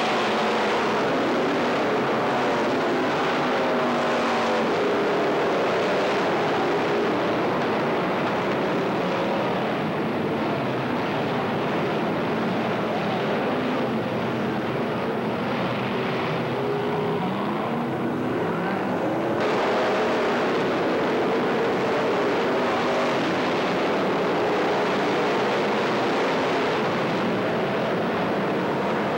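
A pack of race cars running laps together, many engines at once with their pitches rising and falling as the cars come round and pass. The sharper top of the sound thins for a few seconds and then snaps back about two-thirds of the way through.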